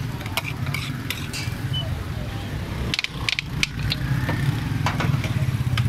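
Metal spatula clinking and scraping on a flat iron griddle at a takatak stall: irregular sharp clinks, several in quick succession about halfway through, over a steady low hum.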